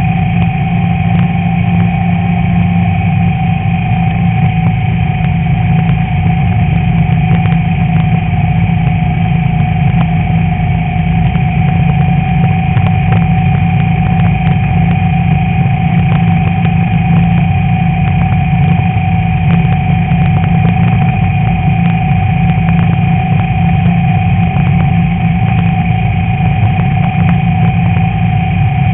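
Class 11 VW Beetle's air-cooled flat-four engine running steadily under race load, with frequent short knocks and rattles throughout.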